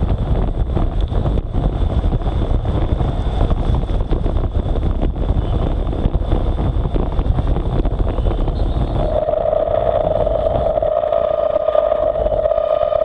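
Wind buffeting the bike-mounted camera's microphone, with road-bike tyres hissing on a wet road at racing speed. About nine seconds in, as the speed drops, the noise thins and a steady high tone comes in and holds.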